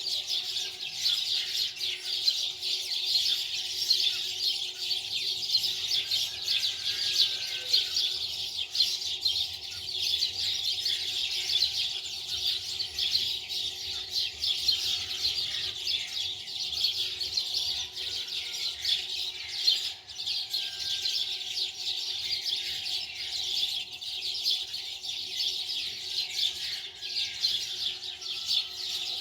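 Many small birds chirping in a dense, continuous chorus, over a faint steady hum.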